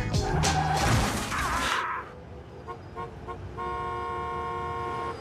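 Car horn: four quick short beeps, then one long steady honk held for the last second and a half. The first two seconds hold loud vehicle noise under music.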